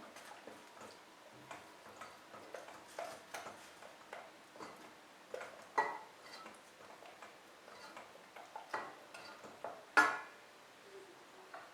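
Irregular light clicks and taps of small objects being handled, with a sharper knock about six seconds in and a louder one about ten seconds in.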